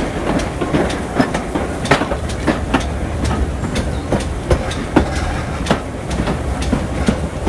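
Steam-hauled train running along the track, its wheels clattering over the rail joints in irregular clicks and knocks over a steady low rumble. The train is headed by GWR 4500-class prairie tank locomotive 4566.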